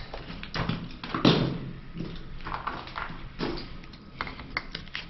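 Irregular knocks, taps and short scrapes of hands and tools working at a copper water pipe, the loudest knock about a second in and a quick run of taps near the end.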